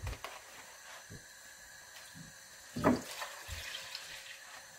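Milk pouring from a plastic jug into a large nonstick pot, splashing into the liquid as it fills, with a short louder burst about three seconds in.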